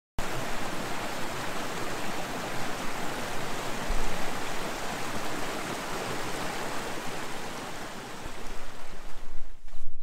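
Desert creek running with monsoon rain, water rushing and splashing over boulders as a steady, dense wash of noise that fades out about a second before the end.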